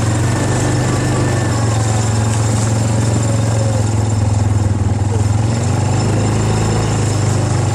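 Engine of a vehicle towing a skier on a rope over snow, running steadily at an even pitch.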